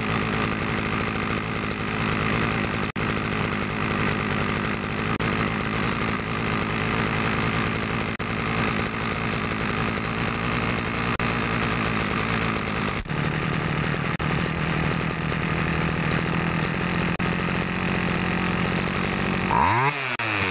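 Homelite SX135 Bandit string trimmer's small two-stroke engine idling steadily while its carburettor idle screw is turned, the idle note shifting about two-thirds of the way through. The trimmer has no clutch, so the head spins even at idle. Near the end the engine briefly revs up and back down twice.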